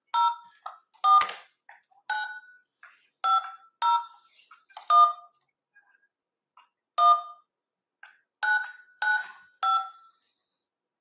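Touch-tone phone keypad beeps as a card number is keyed into an automated bank phone menu: about a dozen short two-note beeps at an uneven pace, with a pause of about two seconds in the middle. The number keyed in is a fake.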